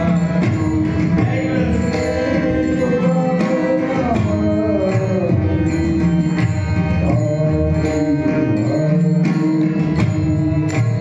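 Marathi devotional singing: a male voice holds long, sliding ornamented notes, accompanied by mridang drum strokes.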